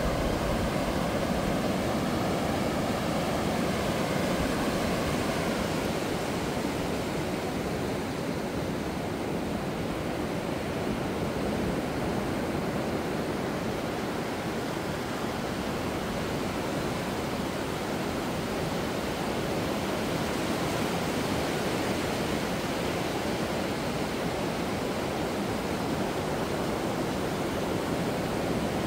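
Ocean surf washing onto a sandy beach: a steady rush of breaking waves and water spreading over the sand.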